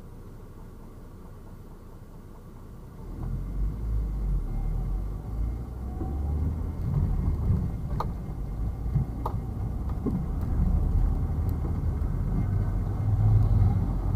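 Low rumble of a car driving on city streets, rising suddenly about three seconds in after a faint steady hum and then holding, with two brief clicks near the middle.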